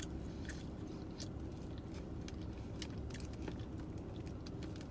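A person chewing a mouthful of papa rellena (fried stuffed potato ball) close to the microphone, with small mouth clicks scattered through, over a low steady hum.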